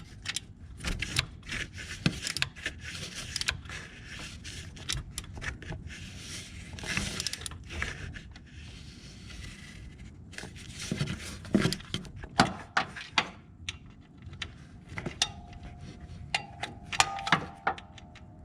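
Hand tools clicking and scraping on metal as the belt tensioner's mounting bolts are tightened by hand, in irregular knocks and rattles. A faint steady tone joins in about three seconds before the end.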